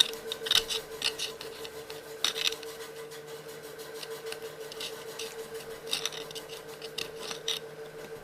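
Small hand tools scraping, rubbing and clicking in irregular short strokes against a phone's parts, over a steady faint hum.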